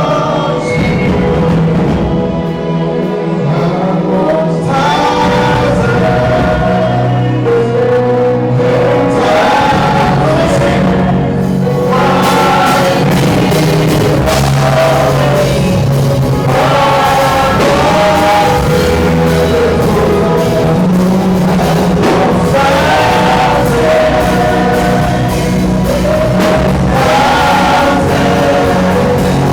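Gospel music: voices singing in a choir over steady instrumental backing.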